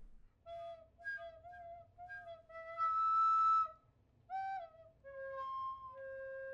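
A flute playing a slow, simple melody: a few short notes, then a louder held higher note, a brief note, and a lower note held toward the end.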